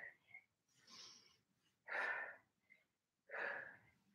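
A woman breathing hard from exertion during a weighted lunge workout: four short, airy breaths about a second apart.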